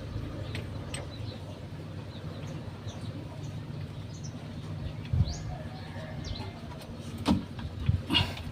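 Small birds chirping now and then over a steady low hum, with a few sharp clicks or knocks, the loudest about five seconds in and two more near the end.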